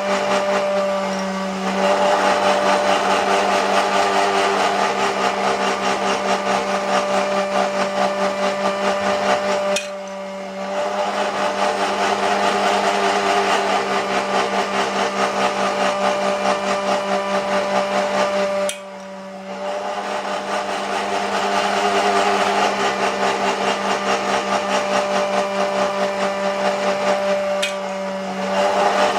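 Small electric motor of an S gauge model railroad running steadily with a buzzing hum and a fast rattle. It cuts out briefly about ten seconds in and again near nineteen seconds, then picks back up.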